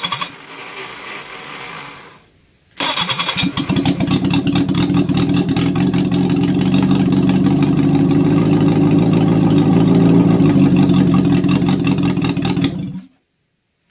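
Reliant Fox four-cylinder petrol engine catching and dying right at the start, then starting again about three seconds in and running steadily for about ten seconds before cutting out suddenly near the end. It is fed only from the fuel in the carburettor float bowl, with the choke given by hand.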